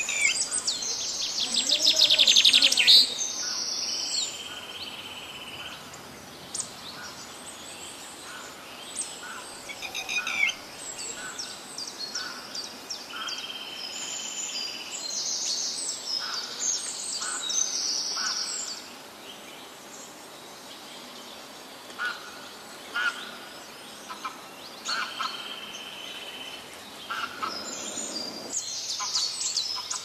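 Red-wattled lapwing calling loudly and repeatedly, sharp high alarm notes of the kind it gives when guarding its nest, loudest in a quick run of notes a second or two in.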